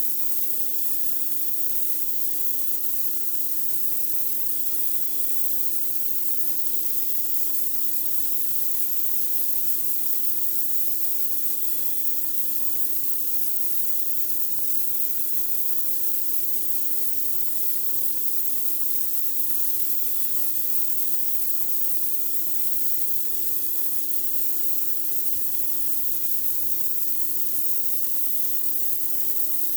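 High-pressure water jet from a pressure washer blasting a dirty driveway: a steady, unbroken hiss of spray, with the machine's steady hum underneath.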